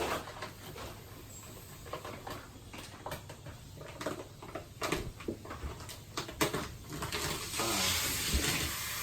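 Plastic vacuum wrapping on a compressed pocket-spring mattress crackling and ticking as it is cut and pulled open. About seven and a half seconds in, a steady hiss of air starts rushing in as the mattress expands, a sound that is called scary.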